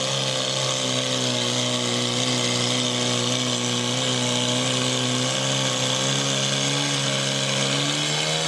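Portable fire pump's engine running at high revs with a steady drone, pumping water out through the hoses to the nozzles.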